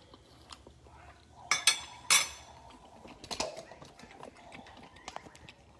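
A metal fork clicking and clinking as a bite of cauliflower fried rice is taken: two sharp, loud clicks about a second and a half and two seconds in, then a few softer ticks.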